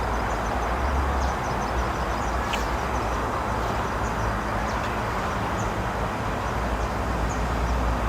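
Steady outdoor background noise: an even rumble and hiss, with many short high chirps scattered throughout.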